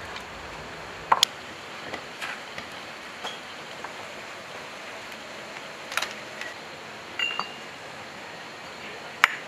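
Hand tools and steel engine parts clinking and knocking as a diesel engine is put back together: scattered short, sharp metal clinks, a few of them loud, one with a brief ring, over a steady background hiss.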